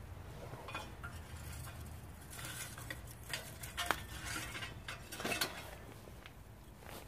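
Clinks and scrapes of char biomass fuel being handled into a metal rocket stove. A sharp clink comes about four seconds in, and a cluster of knocks a little after five seconds.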